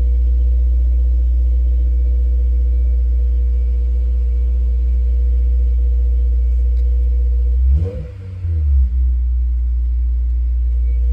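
Honda S2000's four-cylinder engine idling steadily with an even low hum, checked after new spark plug connector clips were fitted. About eight seconds in the sound briefly wavers and dips before settling back to the steady idle.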